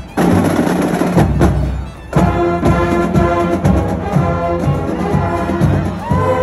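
Marching band playing: the drumline beats a cadence, and about two seconds in the brass section, sousaphones among them, comes in with held chords over the drums.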